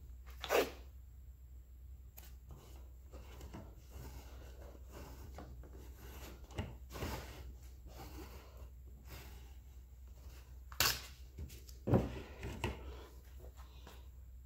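Handling noise: a clear tube being moved and set on its plastic cradles, with a few sharp knocks and clicks (the loudest about eleven and twelve seconds in) and stretches of faint rubbing, over a steady low hum.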